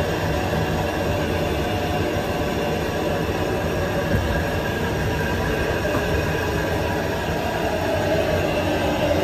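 Steady roar of commercial restaurant kitchen equipment, with a faint whine running through it.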